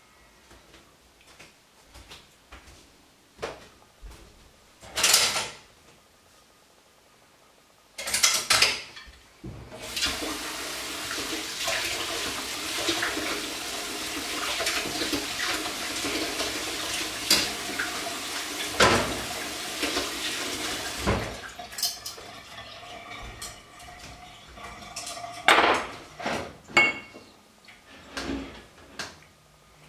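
Kitchen tap running for about ten seconds, filling a plastic measuring jug with water. Dishes and utensils clatter and knock before and after.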